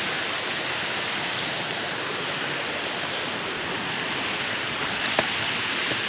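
Small forest waterfall with a steady rush of water splashing down over rocks, and one brief tap about five seconds in.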